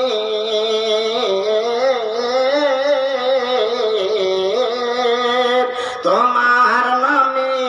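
A man singing a Bengali Islamic gazal through a microphone, drawing out a long, wavering, ornamented note; about six seconds in he breaks off and starts a new rising phrase.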